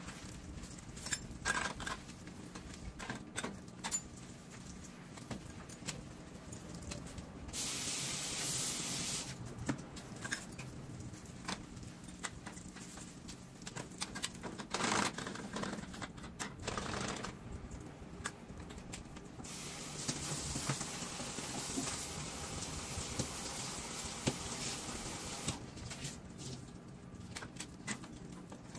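Sponge and cloth scrubbing and wiping a gas stovetop, with scattered light knocks and clicks against the burners. Two longer stretches of hissing noise come about 8 s in and from about 20 s to 25 s.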